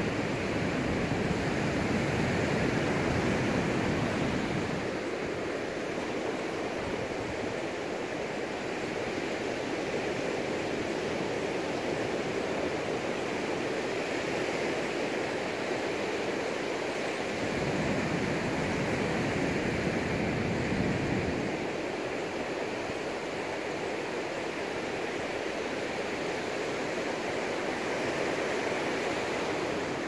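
Sea surf breaking and washing up a sand beach in a steady hiss, with two louder stretches of deeper rumble: one at the start and one about two-thirds of the way through.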